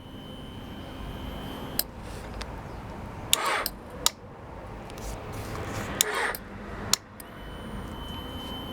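Electrical clicking from a 2002 Honda CBR600 F4i that won't start, as the start button is pressed and let off, twice: a relay clicks, then a loud click comes from the battery, and the engine does not crank. The cause was a weak battery not putting out enough amps to turn the starter. A faint steady high whine sits under the clicks at the start and again near the end.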